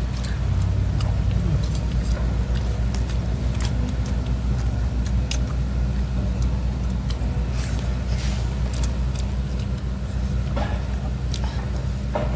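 A steady low engine drone runs throughout. Scattered light clicks and taps sound over it, from hands and a spoon at a meal laid out on banana leaves.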